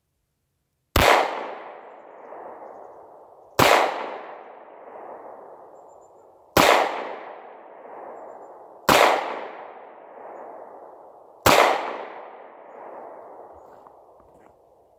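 Ruger SP101 revolver firing five .38 Special rounds at an unhurried pace, about two and a half seconds apart, each shot echoing away over a couple of seconds. Every primer goes off with the lighter 10-pound hammer spring: no light strikes or misfires.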